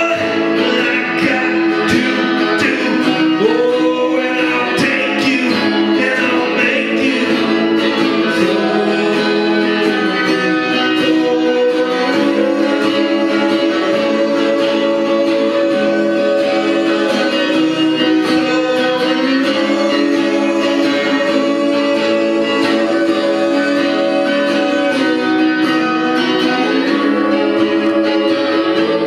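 Live band: a man singing long, held notes into a microphone over a strummed acoustic guitar, heard through a PA system.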